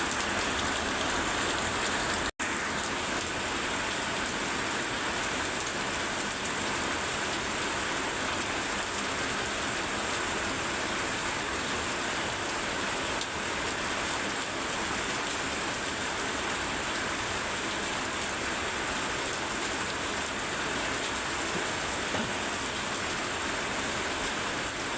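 Very heavy rain falling steadily, an even continuous hiss of downpour. A split-second gap cuts the sound out completely about two seconds in.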